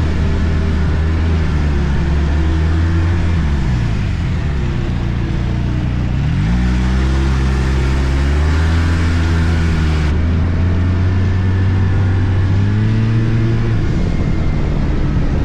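Arctic Cat F1100 turbo snowmobile engine running under way on the trail. The engine note drops as the throttle is eased off about three to four seconds in, rises again as it is opened about two seconds later, then dips briefly near the end.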